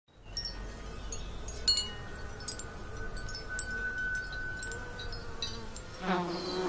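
Chimes ringing: scattered light strikes that each ring on, the loudest about a second and a half in, with a held ringing tone in the middle. Music comes in just before the end.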